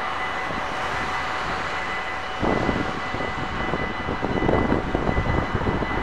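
Dutch railway level-crossing warning bells ringing steadily while the barriers are down. From about two and a half seconds in, irregular gusts of wind buffet the microphone.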